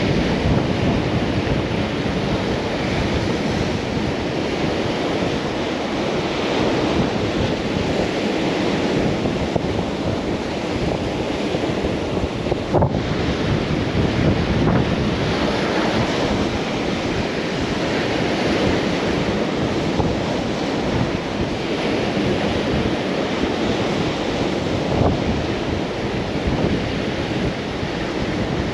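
Ocean surf breaking and washing over a rocky shore, a continuous rush of waves, with wind buffeting the microphone.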